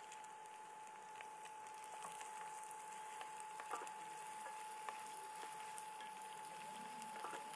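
Small potato dumplings frying gently in butter and garlic in a stainless steel skillet, a faint, steady sizzle, with a wooden spatula scraping and knocking against the pan a few times as they are stirred. A faint steady high tone runs underneath.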